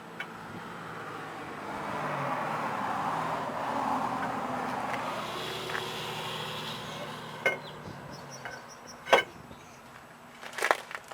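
A vehicle passing by, its noise swelling and then fading over several seconds, followed by a few sharp metallic clinks.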